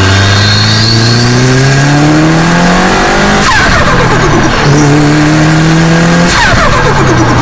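Subaru WRX STI's EJ25 turbocharged flat-four pulling up through the revs twice, about three seconds each, with the revs dropping sharply at each lift-off, about 3.5 s and 6.3 s in. Each lift brings the chattering turbo flutter of the billet VF48 turbo, the fluttering strongest on the second lift.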